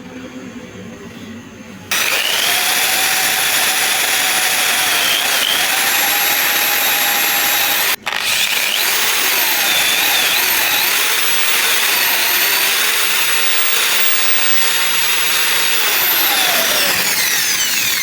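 A small electric power tool running at high speed, its whine rising and falling as the load on it changes. It starts about two seconds in and cuts out for a moment about eight seconds in.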